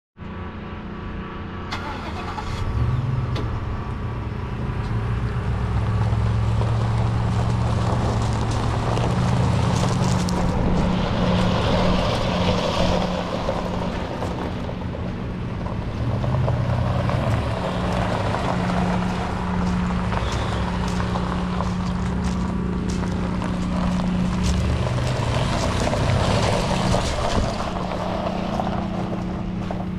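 2017 Ford F350 Super Duty pickup's engine idling steadily, with footsteps crunching on gravel at times.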